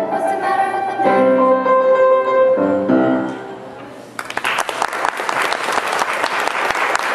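Grand piano and two girls' voices finish a duet on a held final note that dies away about three seconds in. Just after four seconds, audience applause breaks out.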